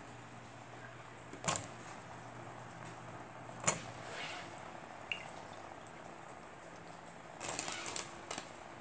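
A metal spoon knocking against the side of a stainless steel pot of soup: sharp clinks about a second and a half in and again near four seconds, then a quick cluster near the end, over a steady faint hum.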